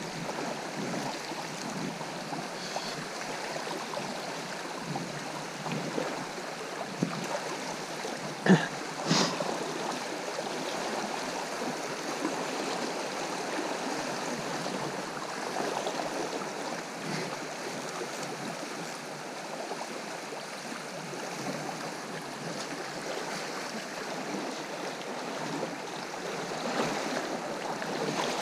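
Fast, shallow river rushing over riffles: a steady, even wash of running water. Two brief knocks, less than a second apart, come about a third of the way in.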